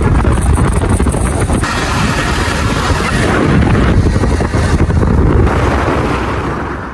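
Loud, steady wind rushing over the microphone on a moving motorbike, with road noise underneath; it fades away near the end.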